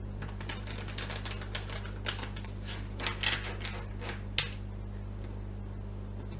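A deck of tarot cards being shuffled by hand: a fast run of quick clicks and flicks, with a single sharper tap a little after four seconds.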